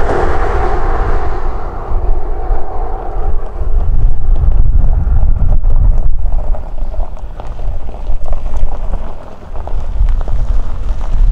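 Wind buffeting the microphone, a heavy low rumble that rises and falls in gusts. Over the first two or three seconds the sound of a passing vehicle fades away.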